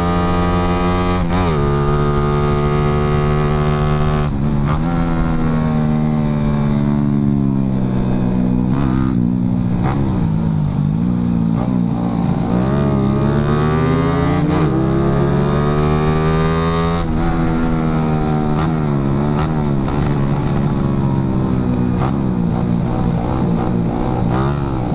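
Yamaha Jupiter Z underbone motorcycle's single-cylinder four-stroke engine running under way at speed, its pitch dropping sharply about a second in and again about four seconds in, as with upshifts, then rising and falling with the throttle through the bends, over wind rumble on the microphone.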